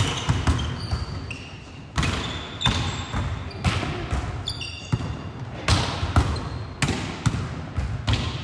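Volleyballs being struck in passes and sets and bouncing on a hardwood gym floor, a rapid irregular run of sharp slaps that echo through the hall. Short sneaker squeaks on the wood are mixed in.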